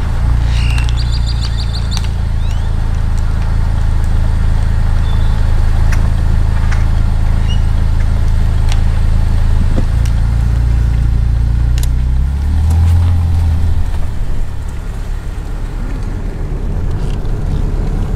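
A car's engine and road noise while driving, a steady low hum that shifts pitch twice in the second half as the car changes speed. A brief high chirp about a second in.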